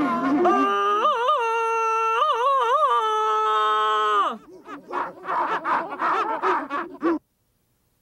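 A man's long Tarzan-style jungle yell, held on one high note and broken twice by yodelling wobbles, then dropping away. It is followed by a quick run of short, rough cries, and the sound cuts off abruptly near the end.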